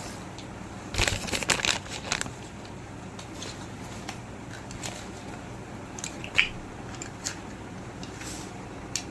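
Crinkling, crushing handling noise lasting about a second, then a few separate sharp clicks, over a steady low hum.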